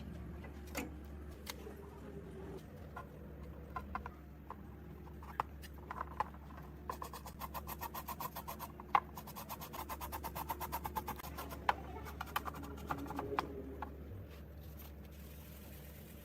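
Light handling sounds: scattered small clicks and knocks, with a quick run of rapid ticks in the middle, over a steady low hum.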